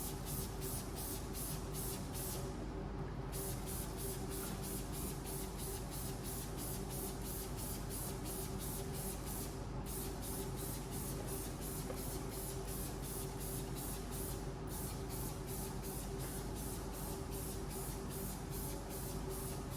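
Hand trigger spray bottle squirting acid wheel cleaner in quick repeated pumps, about three a second, with a few short pauses.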